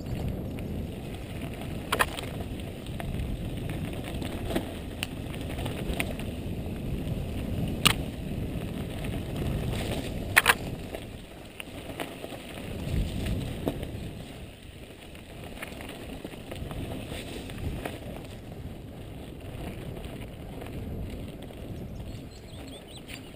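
Mountain bike ridden fast down a dirt singletrack: a steady low rumble of tyres rolling over the trail, with a few sharp clacks from the bike over bumps, the loudest about ten seconds in.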